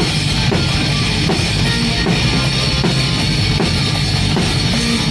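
Rock band playing live, with the drum kit up front: kick drum, snare and cymbals driving a steady beat over the rest of the band.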